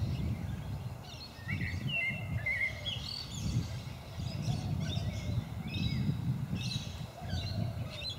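A group of birds calling, short chirps and quick gliding notes in overlapping clusters every second or so, over a steady low rumble.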